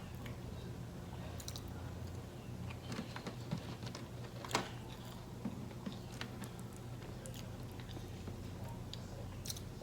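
Someone chewing food quietly, with scattered faint mouth clicks and one sharper click about four and a half seconds in.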